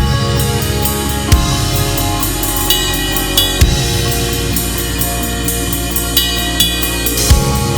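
Gretsch USA Custom drum kit played along to a backing music track: a steady cymbal pattern with kick and snare hits, and a few heavier accents about a second and a half in, near the middle, and near the end.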